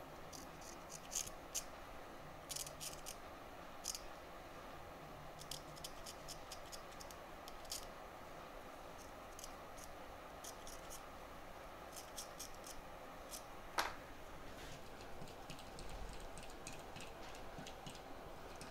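Faint scattered scraping and ticking of a small hand tool cleaning around a removed iPhone NAND chip, over a steady faint hiss. One sharper click about fourteen seconds in.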